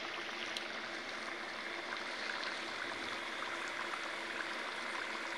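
Rings of dough deep-frying in hot oil in a black wok: a steady sizzle with many small crackles.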